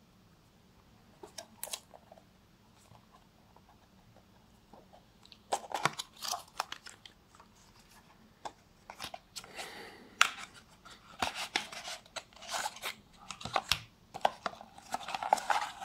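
An Apple charger's paper and cardboard box being torn open by its pull tab and handled: a few light clicks, then from about five seconds in, repeated crackling tears and rustles of paper and card.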